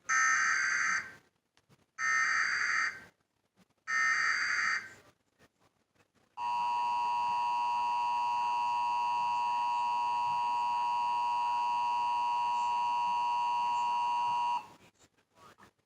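Emergency Alert System required monthly test broadcast on TV: three short bursts of screeching SAME header data, each about a second long and two seconds apart, then the steady two-tone EAS attention signal held for about eight seconds before cutting off.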